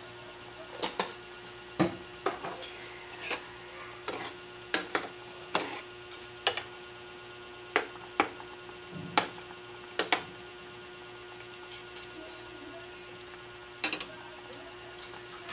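A spatula knocking and scraping against a metal cooking pot while pork adobo is stirred, in irregular clacks a second or so apart, over a steady hum.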